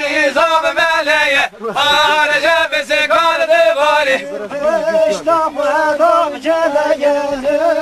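A man singing a folk dance song in a strong, wavering, ornamented voice, with a short breath pause about a second and a half in.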